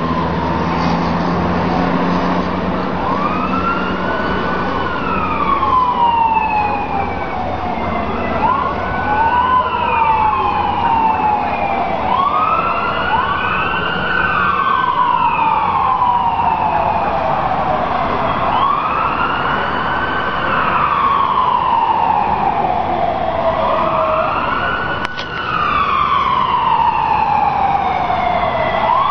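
Several emergency-vehicle sirens wailing at once, each sweep rising quickly and falling slowly over about three seconds, the sirens out of step with one another. A short click sounds near the end.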